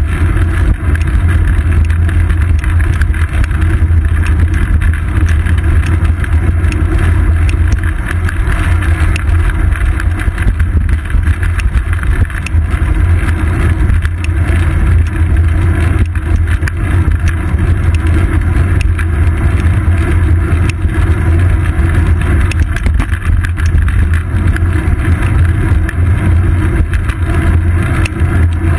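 Steady low rumble of wind and road vibration on a moving bicycle, picked up by a GoPro Hero 2 in its housing on the seat post, with faint small rattles throughout.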